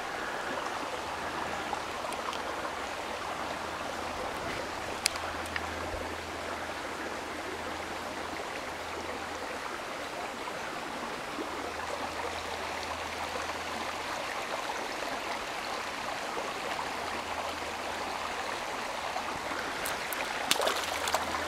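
Creek water running steadily, an even rushing sound, with a faint low hum through much of it. A sharp click sounds about five seconds in, and a few small clicks come near the end.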